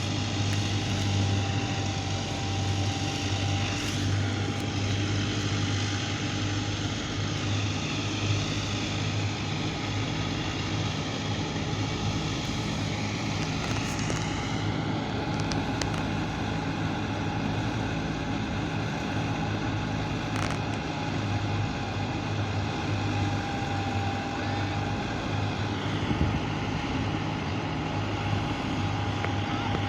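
Harvest machinery's engine running steadily: a constant low drone with a thin steady whine above it and a noisy mechanical rush.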